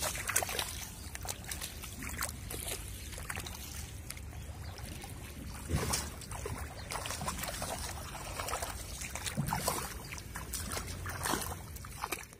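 Shallow pond water splashing and sloshing as a child wades through it and dips an aluminium pot, in irregular splashes, the biggest about halfway through, over a steady low rumble.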